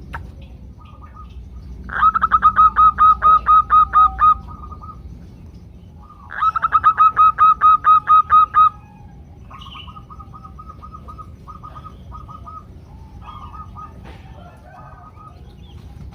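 Female zebra doves calling to males: two loud runs of rapid staccato notes, about five a second, each lasting a couple of seconds. Fainter, broken runs of the same notes follow.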